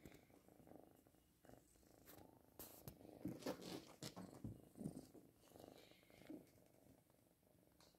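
Tabby kitten purring faintly, with a few louder scrapes and knocks around the middle as it paws at a hard-shell suitcase.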